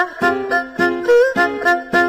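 Background music: a bouncy melody of short, pitched notes, about three a second, with a short upward slide in the middle.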